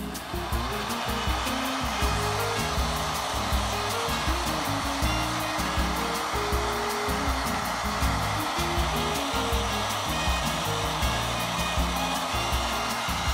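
Heat gun switched on: its fan spins up with a rising whine in the first second, then blows steadily. Background music with a steady beat underneath.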